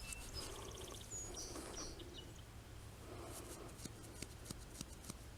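Faint songbird chirps in the background: a few short high notes and a quick trill in the first couple of seconds, with a scatter of faint small clicks later on.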